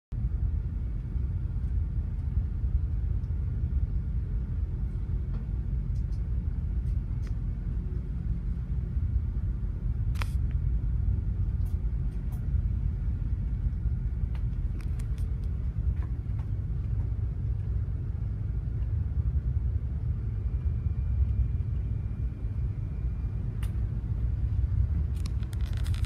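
Steady low rumble inside a container ship's wheelhouse with the ship under way, with a faint steady hum over it. A few faint clicks, one about ten seconds in and a cluster near the end.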